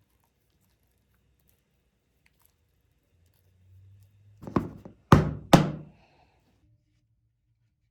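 Three sharp knocks of a hard object on a hard kitchen surface, a little over halfway through: one, then two more about half a second apart.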